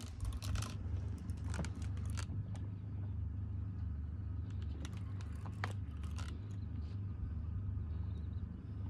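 A boat's engine idling with a steady low rumble, with scattered light clicks and taps over it.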